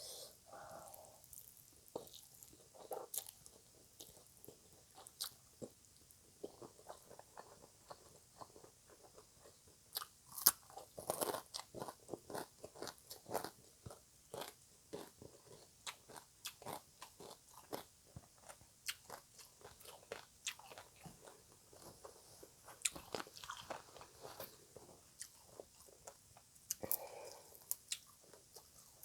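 Close-miked chewing of green papaya salad: many irregular crisp crunches of shredded raw papaya between the teeth, with a few softer wet mouth sounds.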